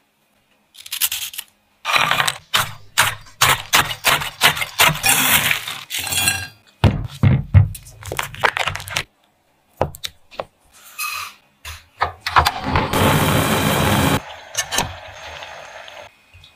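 Food-prep handling sounds in quick succession: many sharp cracks, snaps and clinks as Oreo cookies are broken apart over a glass bowl, then the crackle of a foil butter wrapper being peeled open. Near the end comes a steady hiss of about a second and a half.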